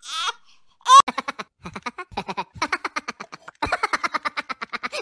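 A baby's crying ends in a short sob. About a second in, a long run of quick, pulsing laughter starts, typical of a baby laughing.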